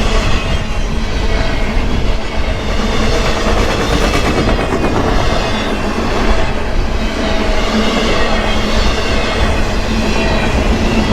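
A train passing on the track, a steady loud rumble of wheels on rail with clickety-clack.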